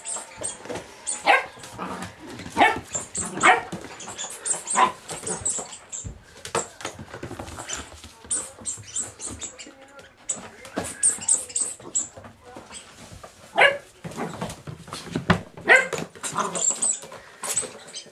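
Puppy giving short barks in play, in two bunches: several in the first five seconds and more about 13 to 16 seconds in. Sharp clicks and scrabbling on a hard floor run between the barks.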